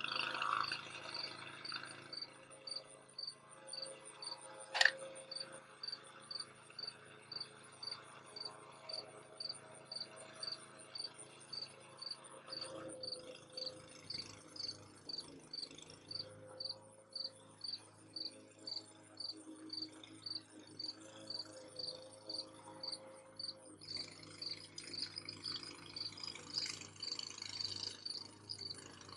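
Crickets chirping in a steady, even rhythm of about one and a half chirps a second, with a faint, higher insect trill behind them. A single sharp click sounds about five seconds in.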